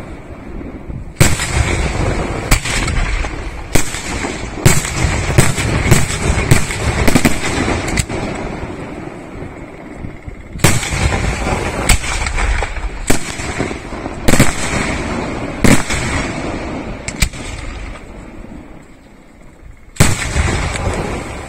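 Aerial firework shells bursting: a quick run of sharp bangs for the first several seconds, then bangs roughly a second apart, a lull, and another loud bang near the end. Each bang is followed by a rolling echo.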